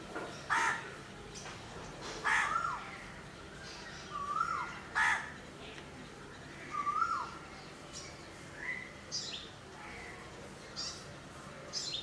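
Crows cawing in harsh calls about every two seconds, mixed with a repeated short rise-and-fall call and some sharp high notes from other birds.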